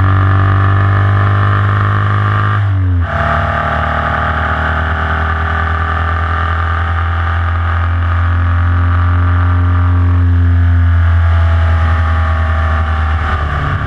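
Formula Vee race car's air-cooled Volkswagen flat-four engine pulling hard, heard from the car's onboard camera. Its pitch climbs slowly, drops suddenly with an upshift about three seconds in, then climbs slowly again through the next gear.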